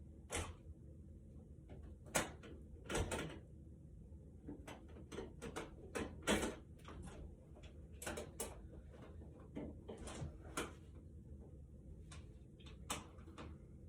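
Flathead screwdriver driving the small screws of a light switch's cover plate: scattered sharp clicks and a few short scrapes of the blade in the screw heads.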